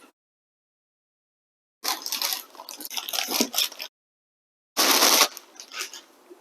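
Packaging of a boxed liquid CPU cooler being handled: cardboard and plastic rustling and scraping for about two seconds, then, after a gap of dead silence, a short loud rasp about five seconds in, followed by a few light clicks.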